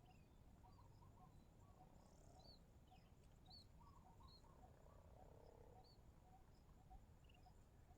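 Near silence with faint chirping: short, repeated calls of small wild animals, some low and evenly spaced about twice a second, others higher and scattered.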